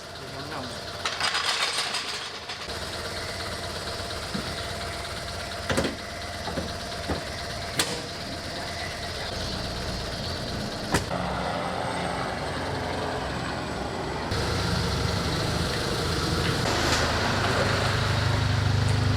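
Proton Waja engine idling, a little unevenly after its battery terminal was disconnected, so the idle has not yet been relearned. A few sharp metallic clicks sound over it, and it grows louder near the end.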